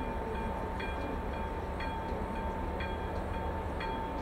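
Electronic warning bell (AŽD ZV02) of a Czech level-crossing signal ringing, about two strikes a second over a steady high tone, sounding while the red lights flash to warn that a train is coming.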